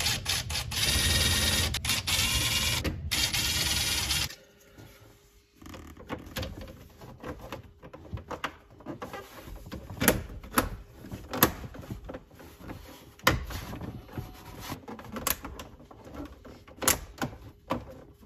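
A cordless driver runs in short spurts for about the first four seconds, driving screws into the lower dash. Then plastic dash trim is handled and pressed into place, giving a string of sharp clicks and snaps as its clips seat.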